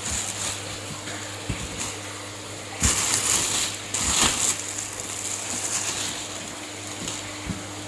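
Packaging being handled while a box of shipped fish is unpacked: scattered clicks and rustles, with two louder rustling bursts around three and four seconds in, over a steady low hum.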